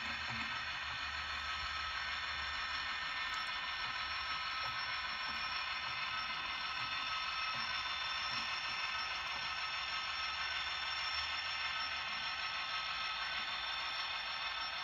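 Model diesel locomotive running along the track: a steady hum with many high tones held level.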